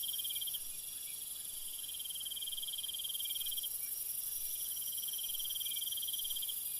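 Crickets chirping: high-pitched pulsed trills, each lasting two to three seconds with short breaks between them, over a steady high hiss.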